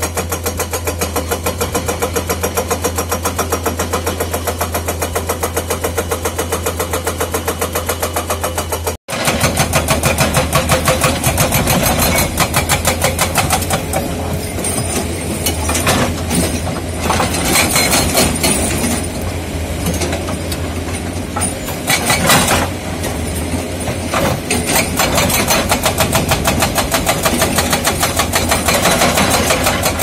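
Komatsu JTHB210 hydraulic breaker on a Komatsu PC210 excavator hammering rock, a fast, even rattle of chisel blows over the running engine. A brief break comes about nine seconds in, after which the hammering is louder, with heavier surges.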